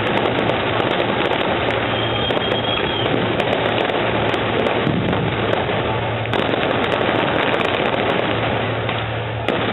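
Fireworks display: a loud, dense, continuous barrage of rapid pops and crackling bursts.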